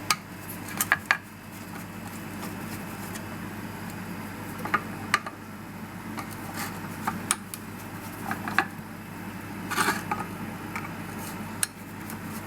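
Scattered light clicks and clinks of small metal and plastic parts and tools being handled while a lawnmower's fuel tank and carburettor are worked on, over a steady low hum.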